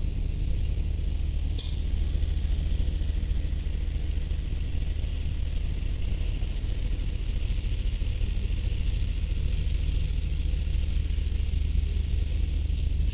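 Steady low engine rumble with an even higher-pitched hiss over it, and one brief sharp click about one and a half seconds in.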